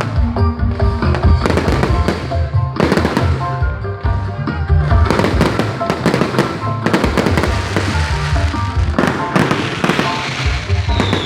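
Fireworks going off repeatedly, bangs and crackles following one another throughout, over loud music with a heavy bass beat.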